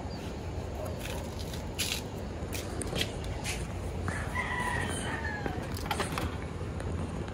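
A rooster crows once, a drawn-out call starting about four seconds in and lasting over a second. Scattered sharp clicks and knocks come from a car battery being handled and set into the engine bay.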